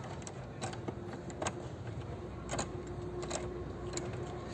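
Scattered sharp metallic clicks and clinks, about six, irregularly spaced, from a socket wrench working on the headlight's 10 mm mounting nuts. A faint steady hum runs underneath.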